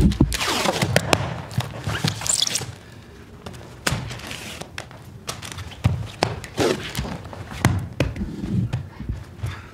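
Irregular thuds and knocks, denser and loudest in the first couple of seconds.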